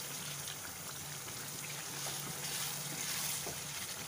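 Chicken masala sizzling and bubbling in oil in a nonstick kadai as it is stirred with a wooden spatula: the gravy is being cooked down to a thick, semi-dry fry.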